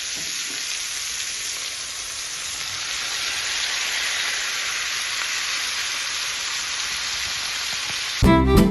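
Food sizzling in a hot frying pan: a steady hiss. Music with strings cuts in abruptly near the end.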